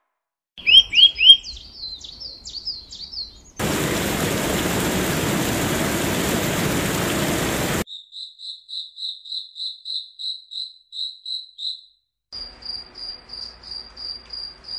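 A string of nature sound effects: a bird's quick, falling chirps, then about four seconds of steady rushing noise that starts and stops abruptly, then crickets chirping in even pulses about three a second. Near the end comes a faster, higher cricket trill.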